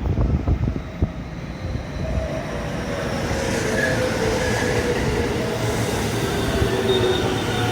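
Electric commuter train running along the station platform, its rumble building from about two seconds in, with faint whining and squealing tones from the motors or wheels. A few low thumps come in the first second.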